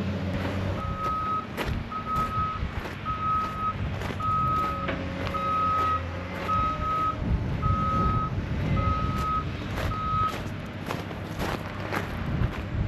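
Backup alarm of a heavy construction vehicle beeping at one steady pitch, about nine beeps a little over a second apart, stopping about ten seconds in. An engine runs underneath, with scattered knocks.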